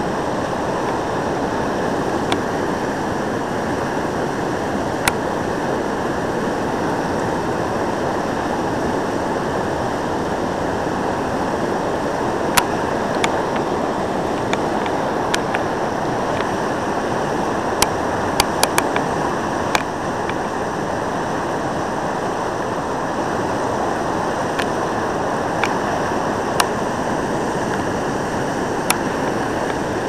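Whitewater rapid below a four-foot ledge drop rushing in a steady, unbroken roar, with a few sharp clicks scattered through it.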